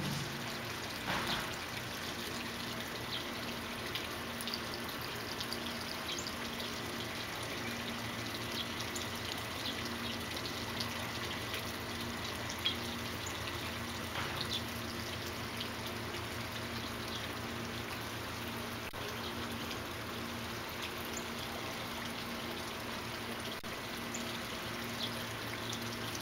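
Steady trickling of running water, with two brief chirps, one about a second in and another about halfway through.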